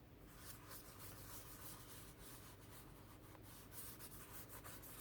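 Faint dabbing and rubbing of a sponge spreading gesso over paper pages: a quick, irregular run of soft scratchy strokes.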